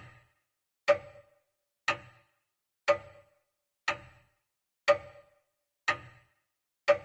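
Clock-tick sound effect counting down the last seconds: one sharp tick each second, each with a brief ring.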